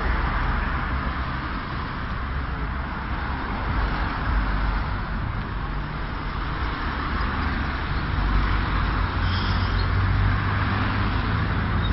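Town street traffic: a steady wash of passing cars, with a low engine rumble that grows stronger in the last few seconds.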